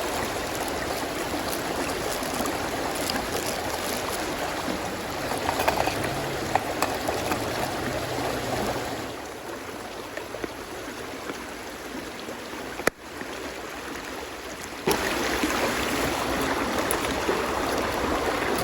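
Steady rushing of a flowing stream, with a few faint clicks. It gets quieter about nine seconds in, cuts out for an instant near thirteen seconds, and comes back louder suddenly a couple of seconds later.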